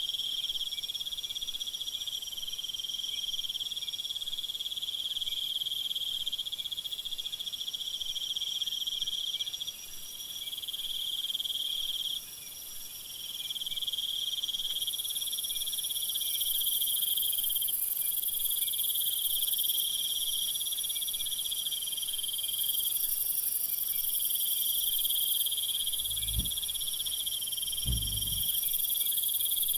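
Crickets trilling steadily in several overlapping high-pitched bands, with two brief low thumps near the end.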